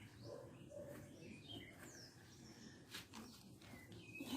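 Near silence with faint bird chirps in the background and a couple of soft clicks about three seconds in.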